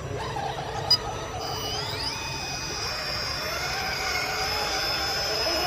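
Electric motor of an RC off-road truck whining steadily, its pitch rising about two seconds in and then holding. There is a single sharp click about a second in.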